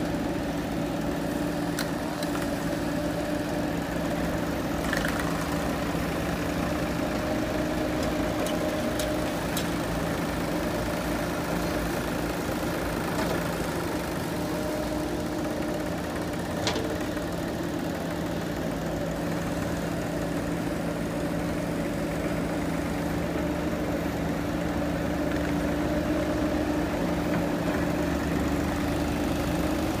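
Diesel engine of heavy earthmoving machinery running at a steady speed without revving. A few faint clinks and knocks are scattered through.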